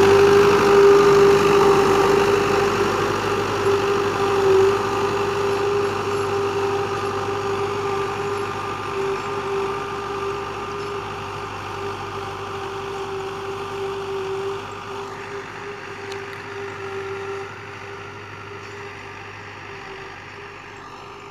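Fiat 640 tractor's four-cylinder diesel engine running steadily under load while dragging a wooden planker over tilled soil, fading gradually as the tractor moves away.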